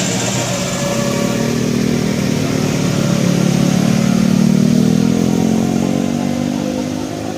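A passing vehicle's engine accelerating, its note rising gently as it gets louder, loudest about four to five seconds in, then fading as it moves away.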